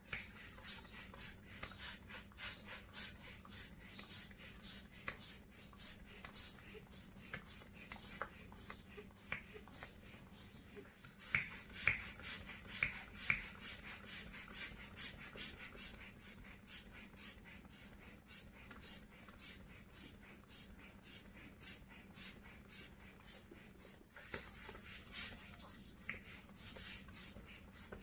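A latex balloon rubbed and handled in quick repeated strokes, about three or four a second, with a few short, louder squeaks around the middle.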